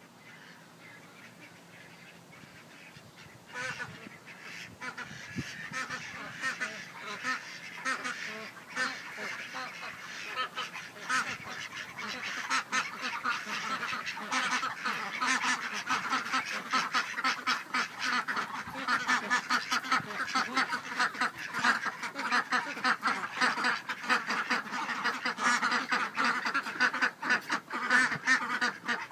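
A flock of Indian Runner ducks quacking: faint at first, then from about four seconds in a dense chorus of short calls that grows steadily louder as the flock comes up close.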